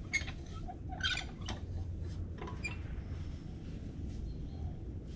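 Metal playground sand digger worked by hand: its handle pivots squeak and click several times, the loudest about a second in, over a low steady rumble.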